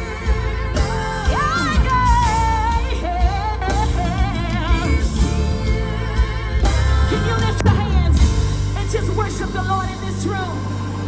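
Live gospel music: a band with heavy bass and sustained chords plays under a singer's wavering, bending vocal runs.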